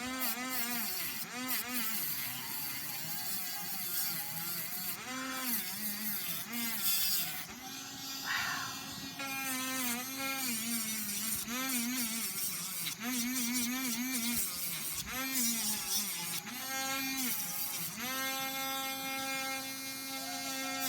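Electric nail drill sanding a leather lace to thin it, a buzzing whine whose pitch dips and recovers again and again as the bit is pressed into the leather and eased off. Near the end it runs at a steady pitch for a couple of seconds.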